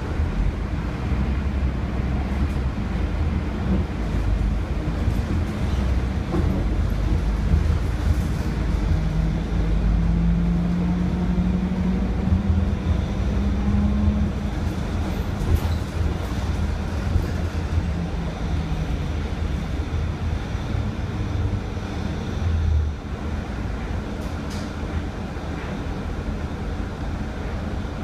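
Interior sound of a Mercedes-Benz OC500LE city bus on the move: its 12-litre OM457hLA diesel engine and ZF 6HP592C automatic gearbox give a steady low rumble. About a third of the way in a whine rises slowly in pitch as the bus picks up speed, and the rumble eases a little after about three-quarters of the way through.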